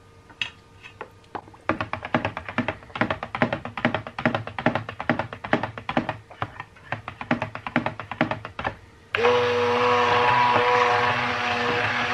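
A stick blender's head knocks and taps rapidly against the sides of a plastic jug as it is worked through soap batter, several knocks a second. About nine seconds in, the stick blender's motor switches on suddenly and runs with a loud steady hum.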